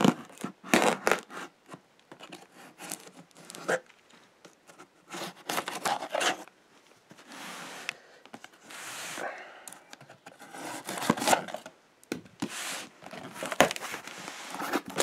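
Cardboard shipping box being opened by hand: packing tape tearing and cardboard flaps scraping and rustling, in irregular bursts with a longer rasp a little past halfway.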